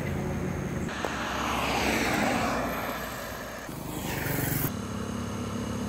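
Motor traffic on a highway: a vehicle passes by, its noise falling in pitch as it goes, and a steady engine hum begins in the last second.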